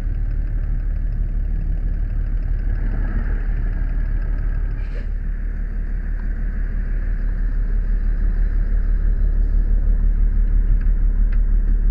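Fire engine's engine running steadily, heard close up at the front of the rig.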